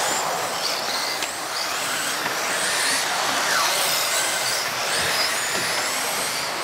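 Several radio-controlled model racing cars running on an indoor track, their motors whining high and sliding up and down in pitch as the drivers throttle on and off.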